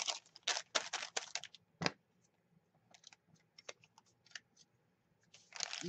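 Hands smoothing and pressing a crinkled paper notebook page, a quick run of rustles and scrapes in the first two seconds, then a few faint clicks and taps as an ink pad's case is handled.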